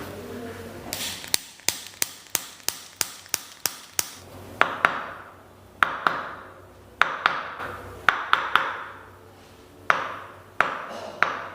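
Sharp taps and knocks from a chiropractic treatment: first a quick, even run of about ten clicks at roughly three a second, then single louder knocks at uneven intervals, each with a short ringing tail.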